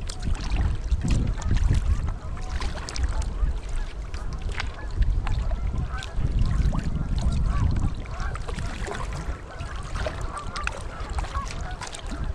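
A flock of Canada geese honking, many overlapping calls that grow thicker in the second half, over the low rumble and splashes of kayak paddling.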